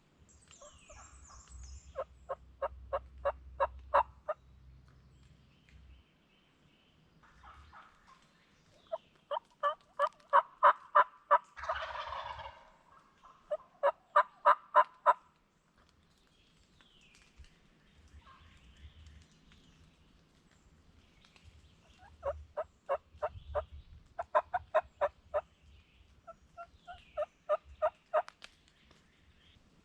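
Wild turkey calling: six runs of evenly paced yelps, loud and close, with a rattling gobble about twelve seconds in, right after the second run. Faint songbird chirps come between the runs.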